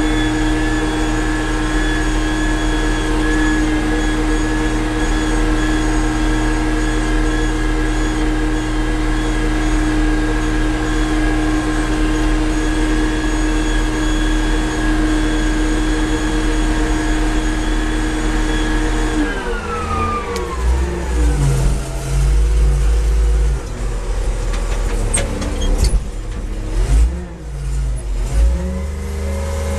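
Front-end wheel loader's diesel engine heard from inside the cab, running at steady high revs while driving. About two-thirds of the way through, the revs drop and then rise and fall unevenly, with a heavier low rumble and a couple of sharp knocks.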